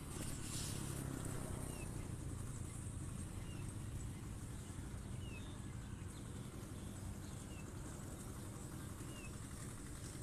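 A small bird repeating a short high chirp about every second and a half, over a steady low rumble.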